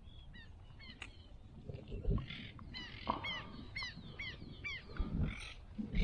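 A bird calling over and over in short, curved chirps, two or three a second. From about two seconds in there are several bursts of splashing as the hooked tararira thrashes at the surface and is lifted out.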